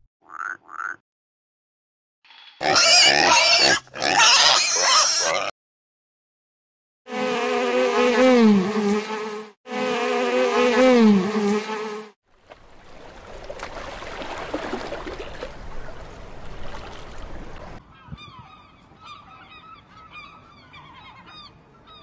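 A sequence of animal sounds. It opens with two short frog croaks, followed by two loud harsh calls and two long calls that waver in pitch. Then a steady buzz of a crowd of honeybees at their hive entrance, and finally short, high chirping calls.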